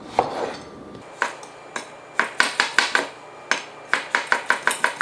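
Kitchen knife chopping on a cutting board: a few single strokes, then quick runs of sharp chops, about five a second, in the second half.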